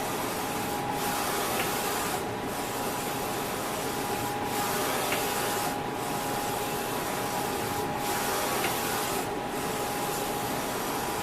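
Kingt KGT-LE-4550C UV flatbed printer with Ricoh GH2220 print heads running while printing a phone case. It makes a steady hiss with a constant whine underneath, and the hiss briefly dips about every one and a half to two seconds.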